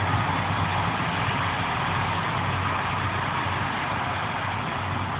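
Jet engine noise of a departing Airbus A330-343X with Rolls-Royce Trent 700 engines: a steady rushing roar with a low hum under it, slowly fading.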